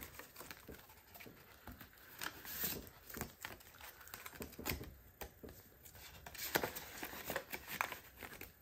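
Faint rustling and light clicks of paper banknotes and plastic-sleeved cash envelopes being handled as the bills are moved from an old envelope to a new one.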